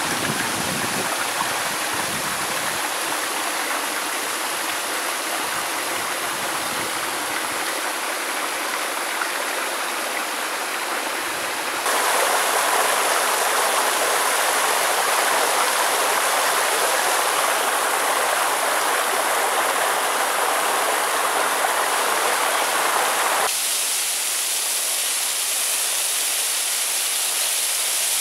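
Waterfall pouring down a rock face: a steady rush of falling water, jumping abruptly louder about twelve seconds in and dropping back about eleven seconds later.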